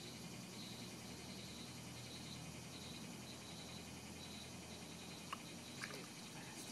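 Faint, even high-pitched chirping of a calling animal, pulsing about two to three times a second over a low steady hum. Two short clicks sound near the end.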